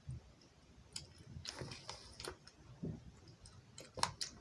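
Faint, scattered plastic clicks and taps of a doll being handled, a few sharper ticks near the end.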